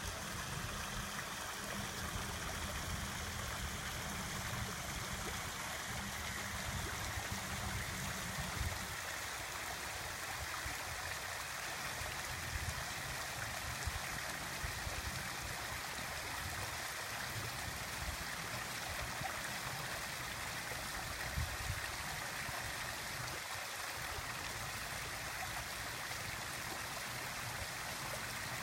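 A water fountain running, its water falling and splashing in a steady, even rush. An uneven low rumble sits underneath and is stronger for the first nine seconds or so.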